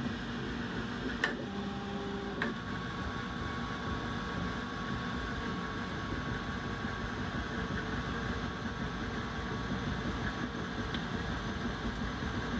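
Large FDM 3D printer running: stepper motors hum and whine as the print head moves along its linear rail, over steady fan noise. Two sharp clicks come in the first few seconds, and a steady whine sets in after the second.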